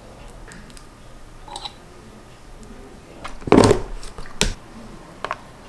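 A utensil scraping blueberry jam out for a topping: a short scrape about three and a half seconds in, then a sharp click about a second later and a lighter one near the end, with soft handling ticks between.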